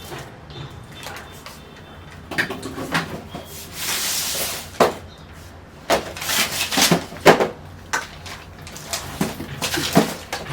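Food packs and containers being handled and set down inside a fridge: a string of irregular knocks and clicks, with a stretch of rustling about four seconds in.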